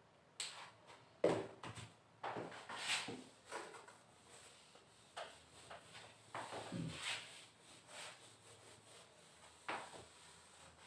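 Light scattered knocks, clicks and rubbing from a marker and duster being handled at a whiteboard, with the duster wiping across the board near the end.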